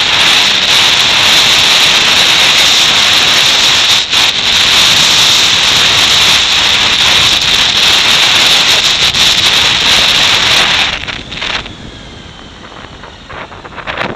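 Wind rushing over the microphone of a camera on a moving motorcycle, a loud steady rush that drowns out the engine. It drops sharply about eleven seconds in, leaving fainter road and engine sound.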